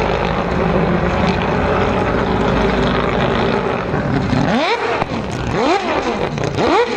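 Mazda 787B's four-rotor R26B rotary engine running steadily, then from about four and a half seconds in revving sharply up and back down about once a second as the car comes close.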